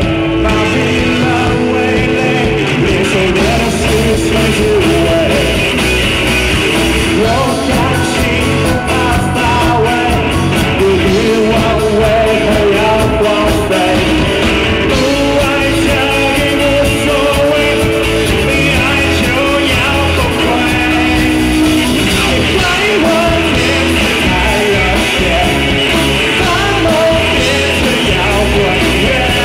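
Live rock band playing loud through stage speakers, a male lead singer holding long sung notes over electric bass and drums.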